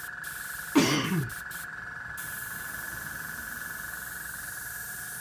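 Airbrush air hissing in short spurts as the trigger is pressed and released, stopping and starting several times over the first two seconds before settling to a fainter hiss, over a steady high-pitched hum. About a second in, a brief voice-like sound falls sharply in pitch and is the loudest thing heard.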